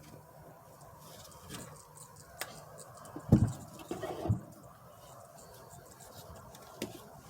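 Scattered light clicks and scrapes of parts being handled, with two dull low thumps a little past the middle, the first the loudest.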